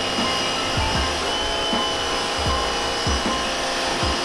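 Portland 1750 PSI electric pressure washer running, a steady motor whine with the hiss of its wide fan spray hitting a tire. Irregular low thumps come through the run, with air still bleeding from the system, as the owner suspects.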